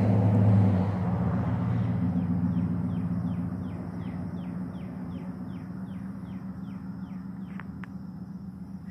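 A bird calls a quick, regular series of short downward-sliding notes, about three a second, for several seconds. Beneath it run a steady low hum and a rumble that fades away over the first few seconds.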